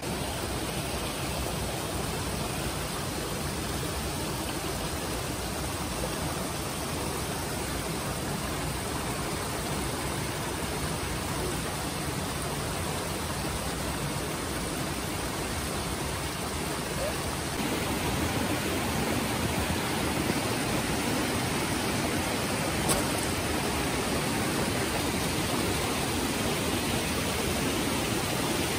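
Steady rushing of a mountain stream running among boulders, a little louder about two-thirds of the way through.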